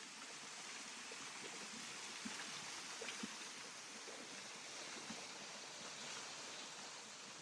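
Waterfall, with steady rushing water and a few faint knocks.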